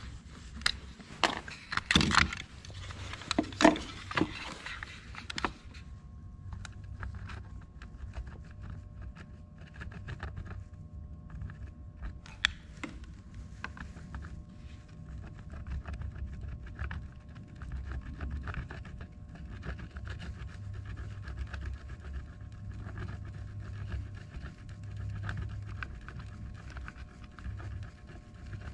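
Hard plastic switch panel clicked and knocked about by hand for a few seconds. Then a steady low electrical hum with a few faint fixed tones sets in suddenly as the soldering iron is held to the plastic to melt it.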